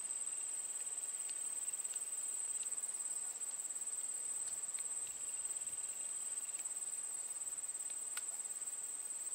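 Insects trilling in one steady, unbroken high-pitched note, with a few faint ticks.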